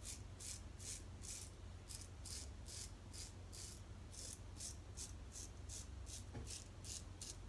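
Merkur Futur adjustable safety razor with a fresh Feather blade scraping lathered stubble off the neck in quick short strokes, about three a second, each a faint rasping hiss.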